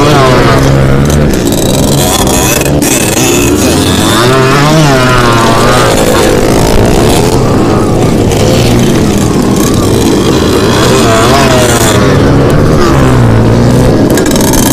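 Two-stroke motocross dirt bike engine at race pace, heard from on the bike, its revs rising and falling every few seconds as the throttle is opened and closed through the corners.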